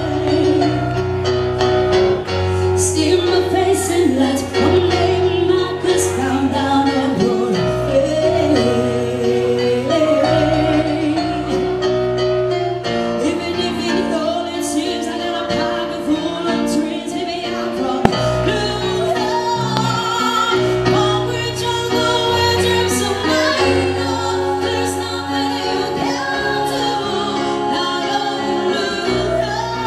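A woman singing through a microphone and PA with a live band: sustained, wavering vocal lines over bass, guitar and drums with cymbal crashes.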